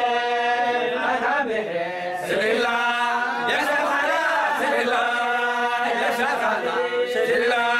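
A group of men chanting a Sufi dhikr (zeylici) together without instruments, in long held vocal phrases with short breaks between them.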